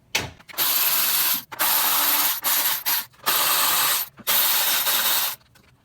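Power ratchet running in about five short bursts of up to a second each, spinning out 10mm bolts.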